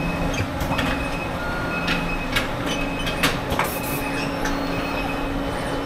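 Electronics factory machinery: a steady hum with many scattered clicks and clacks and a few short high tones.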